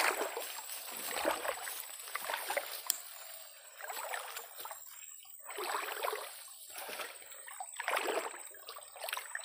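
Water swishing and splashing in slow swells about every two seconds.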